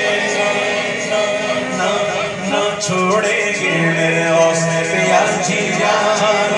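A man singing an Urdu devotional song in praise of Ghaus-e-Azam (a manqabat) into a microphone over a PA, with several voices joining in like a choir.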